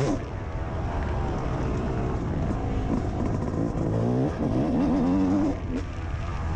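Two-stroke single-cylinder engine of a 2002 Yamaha YZ250 motocross bike being ridden hard on the track, revving up and down with the pitch rising and falling. The throttle closes briefly just after the start and again near the end.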